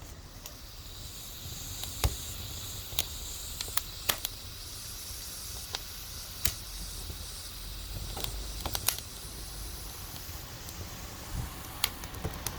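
Cooking over a small wood fire: a steady sizzling hiss with sharp crackling pops at irregular moments, about ten of them.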